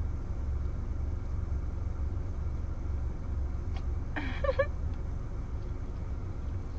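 Steady low rumble of a car heard from inside the cabin, with a few faint clicks and one brief voice-like sound about four seconds in.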